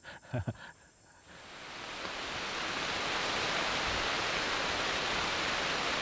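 Rain falling on forest foliage: a steady hiss that fades in over the first two seconds and then holds steady.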